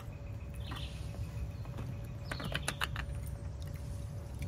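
Birds chirping briefly a few times over a steady low background rumble, with a quick cluster of light clicks from a metal spoon against a roasted beef marrow bone about two and a half seconds in.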